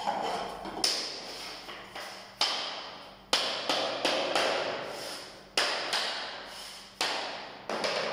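Hammer tapping click-lock floor planks to seat their joints: about a dozen sharp knocks at uneven intervals, some in quick runs of two or three, each ringing briefly.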